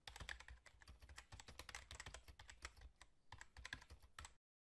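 Keyboard typing sound effect: a quick, faint run of key clicks that pauses briefly a little after three seconds in, then resumes and cuts off abruptly near the end.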